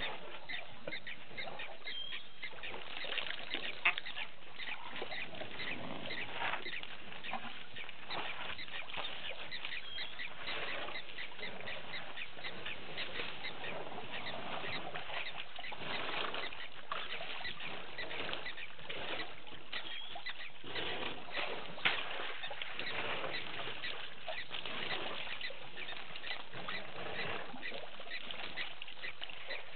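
Water splashing and sloshing as a herd of African elephants drinks at a waterhole: a steady jumble of irregular splashes, with two sharper knocks.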